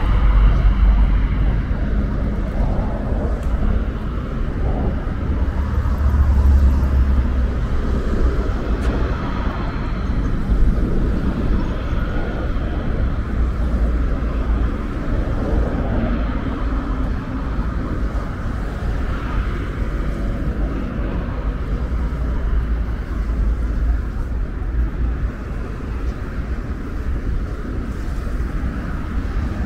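Steady road traffic on a wide multi-lane street: cars and city buses passing in a continuous rumble, with no single event standing out.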